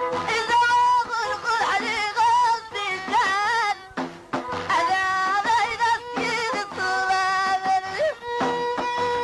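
Middle Atlas Amazigh folk music: a wavering, ornamented sung line with instrumental accompaniment. About eight seconds in it gives way to a steady plucked-string passage on held notes.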